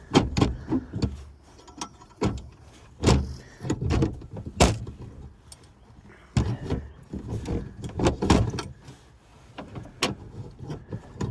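Irregular clunks, knocks and rattles of hands handling a capacitor and its wire leads inside a heat pump's control compartment.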